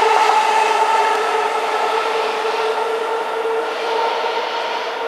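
A Keihin-Tohoku Line E233-series electric train running past the platform and away. Its steady whine, over rolling noise, slowly fades as the last car clears.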